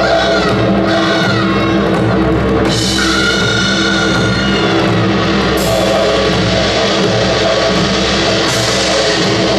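Loud, dense live music from a Korean ensemble playing modern Korean traditional music, with drums under a high melodic line that glides near the start and holds a long note about three seconds in.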